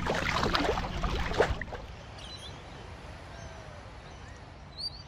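Rushing wind and sea noise at a kayak on open water, which drops about two seconds in to a quieter steady hiss of calm water with a few faint high chirps, one slightly louder near the end.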